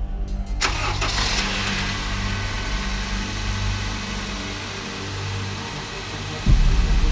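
A car engine starting and running, with a sudden louder low rumble about six and a half seconds in.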